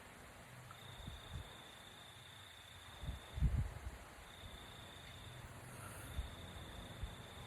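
A sleeping person snoring: one short, low, rough snore about three seconds in, part of a slow breathing rhythm. A high, thin insect trill switches on and off in the background.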